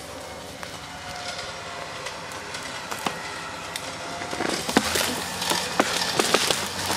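A winch hauling a fallen tree: a steady mechanical hum, with sharp cracking and snapping of branches and wood beginning about four and a half seconds in as the tree shifts.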